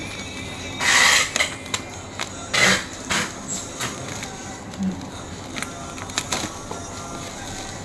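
Packaging of a boxed mini freezer being opened and handled, with two short, loud rustling or tearing noises, about a second in and just under three seconds in, and scattered clicks and knocks between.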